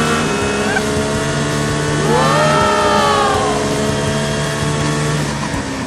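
A vehicle engine running steadily, revving up and back down about two seconds in.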